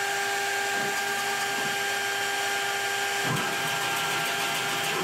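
CNC router spindle running at speed with its bit at the surface of a wood board: a steady whine of a few constant tones over an even hiss.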